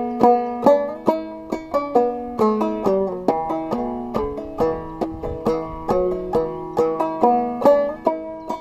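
Banjo played clawhammer style: a march tune picked out in quick, sharply struck notes with a steady, brisk pulse.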